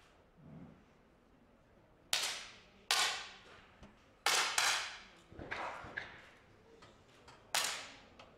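About six sharp pops from 10-metre air pistols fired one after another by several shooters on the line, irregularly spaced, each with a short echoing tail.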